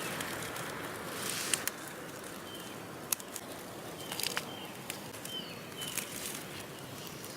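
Hand pruners snipping Veronica stems, a few separate sharp clicks, over a steady rustle of foliage, with several short bird chirps in the background.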